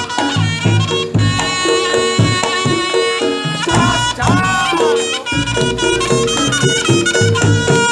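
Reog Ponorogo ensemble music accompanying a jatil dance: a loud, reedy slompret (shawm) melody that bends sharply in pitch about halfway through, over a steady rhythm of drums and gong-chimes.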